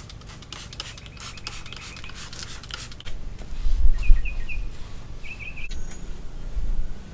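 A rapid run of short hissy bursts, about three or four a second, for the first three seconds. Then a bird chirps in short repeated notes, over a low rumble on the microphone that is loudest about four seconds in.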